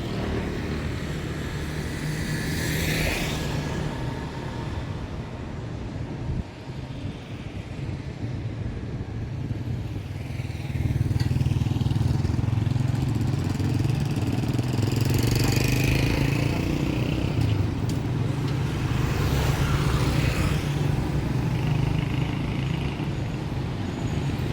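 Street traffic: motor vehicle engines running and passing close by, with a steady low engine drone that gets louder about eleven seconds in and several vehicles whooshing past.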